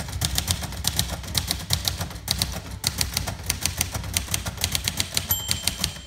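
1958 Royal Quiet de Luxe manual typewriter being typed on quickly: a fast, clattering run of keystrokes with two brief pauses. Near the end the margin bell dings once, warning that the right margin is near.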